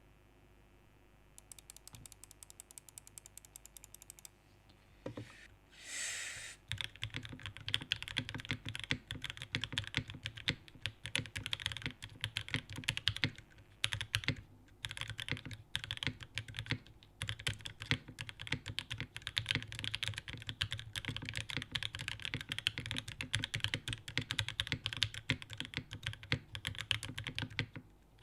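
Custom mechanical keyboard with lubed, filmed and spring-swapped OPblack switches in a top-mount aluminium plate, under GMK keycaps, typed on fast and without let-up. A few faint clicks come first, then a short hiss about six seconds in, before the steady typing begins.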